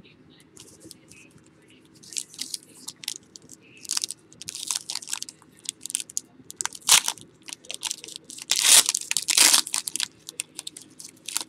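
Football trading-card packaging being torn open and handled: crinkling and tearing of wrapper and box in scattered short bursts, loudest about seven and nine seconds in.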